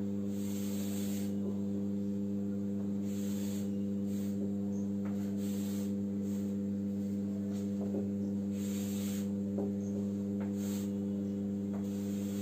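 Steady electrical mains hum, an even low drone, with the scratchy strokes of chalk drawing lines on a blackboard coming and going over it several times, each stroke about a second long.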